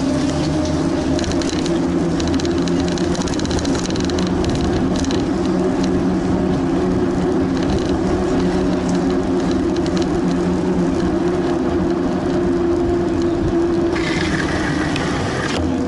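Bicycle riding over a paved path, picked up by a camera mounted on the handlebars: a steady rumble from the tyres and the vibrating frame, with a low hum running under it. Near the end the sound turns brighter and hissier for a couple of seconds.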